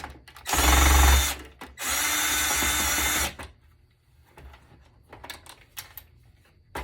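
Power drill/driver with a Phillips bit backing screws out of a PC case, run in two bursts: a short one about a second in and a longer steady run just after, followed by a few light clicks.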